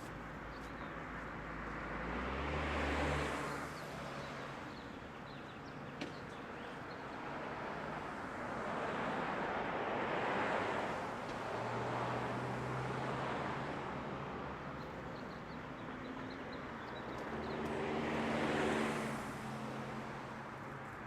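Road traffic: several cars passing one after another, each swelling and fading, over a steady low hum, with one short click about six seconds in.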